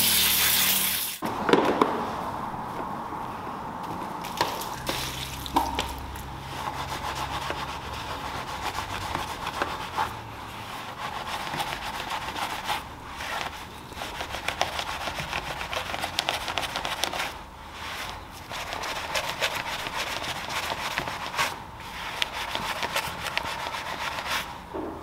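A hand pump sprayer hisses out wheel-cleaner foam and cuts off about a second in. After that, a gloved hand scrubs the foam-covered alloy wheel, with irregular rubbing and crackling of the lather in the spokes.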